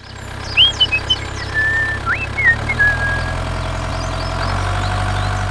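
An engine running steadily at idle, its hum rising a little in pitch and level near the end. A few high chirps sound over it in the first three seconds.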